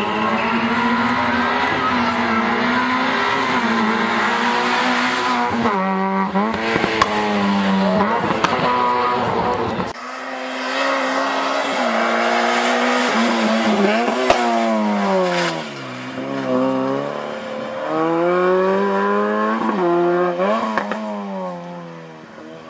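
Race-prepared small hatchback engines running at high revs. The first engine is held high and then steps through several gear changes as the car accelerates. About ten seconds in, a second car is heard on the course, its revs falling and climbing again as it brakes and accelerates.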